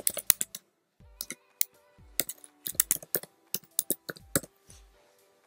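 Typing on a computer keyboard: a quick run of keystrokes, a short pause, then more scattered key clicks while an email address is entered. The typing stops shortly before the end.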